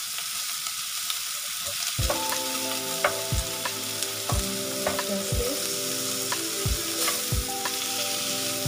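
Beef short ribs sizzling as they sear in a hot grill pan. A steady frying hiss, joined from about two seconds in by steady tones and a soft low thump a little under once a second.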